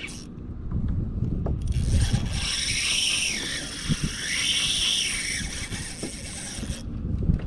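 A spinning fishing reel being cranked: a steady high whirr of its gears and line that starts about a second and a half in, swells twice, and stops sharply near the end. Under it a low rumble of wind on the microphone.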